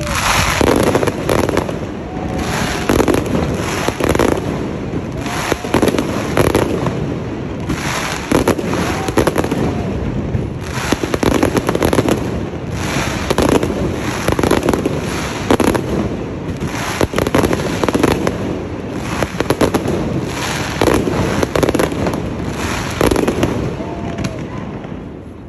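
Fireworks display: a dense, continuous barrage of aerial shell bursts and crackling, many bangs a second, easing off near the end.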